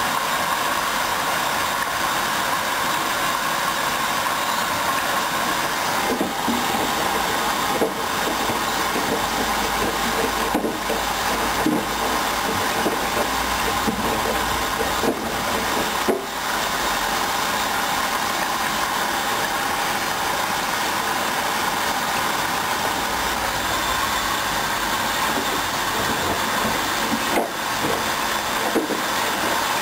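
Hoover Dynamic Wash 10+ front-loading washing machine running a mini-load wash: a steady motor hum with a low rumble as the drum turns, and a few short knocks now and then.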